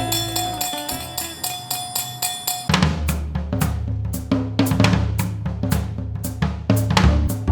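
Background music: a sustained synth passage, then a full drum beat with kick and snare comes in about a third of the way through, with about three hits a second.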